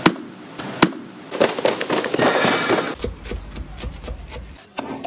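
Crisp roast pork belly skin crackling and crunching under a cleaver: a run of sharp clicks and cracks.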